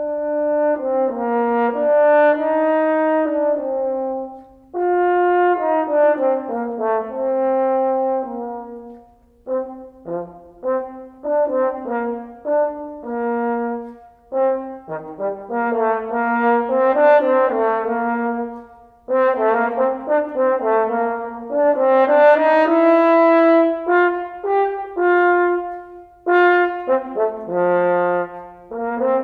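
Unaccompanied French horn playing a technical etude at a moderate tempo: phrases of slurred and short detached notes, broken by brief pauses for breath every few seconds.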